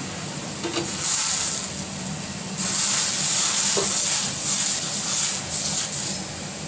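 Dosa batter sizzling on a hot tawa as it is spread outward in circles with a plastic ladle. The hiss grows louder about two and a half seconds in and eases off near the end.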